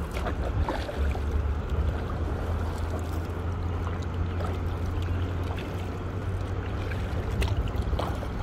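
Out on a kayak on a river: a steady low wind rumble on the microphone over running water, with a few faint knocks.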